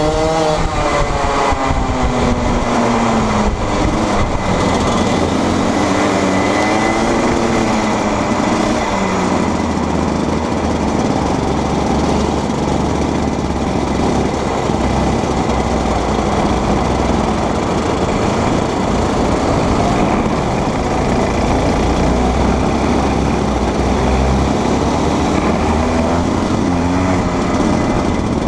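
Two-stroke Rotax Max Junior kart engines at racing speed, heard from onboard a kart running in a pack. The engine note falls off and climbs again through the corners over a steady noisy rush.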